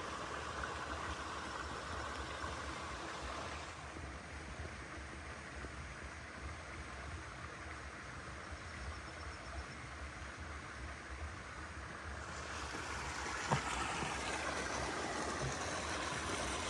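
Steady rushing of flowing river water, with a single soft knock about three seconds before the end.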